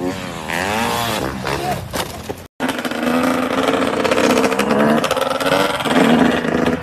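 Dirt bike engines. First a motocross bike's engine revs up and down several times, its pitch rising and falling. After a brief cut to silence, a small dirt bike engine runs steadily under throttle, heard from a following motorcycle.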